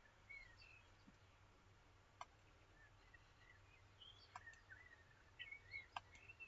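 Faint computer mouse clicks, four in all, the last near the end. Under them, faint birds are chirping in the background.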